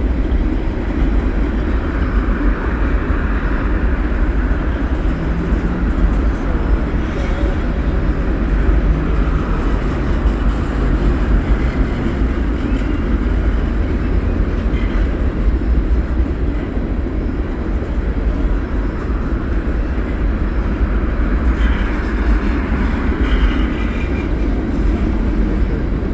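CN freight train rolling past at close range: a loud, steady rumble of railcars on the track.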